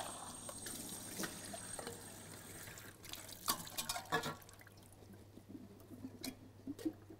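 Liquid from a can of sliced mushrooms pouring and dripping as the mushrooms are drained, fading after about three seconds, followed by a few light knocks.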